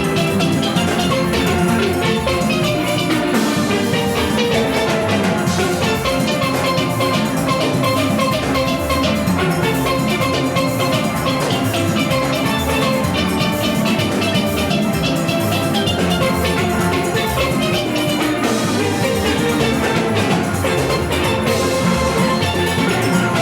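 A full steel band playing: many steel pans sounding together over a steady drum and percussion rhythm, dense and unbroken.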